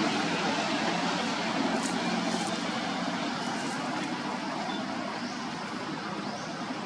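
Steady rushing background noise like passing road traffic, slowly fading, with a few faint high chirps in the second half.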